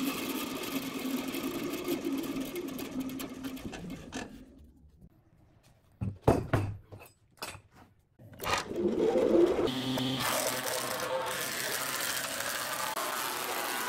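Bandsaw running and cutting wood, fading out about four seconds in. After a short hush come a few sharp knocks as a wooden board is handled on a bench. A combination planer-thicknesser then starts and runs steadily, planing a board.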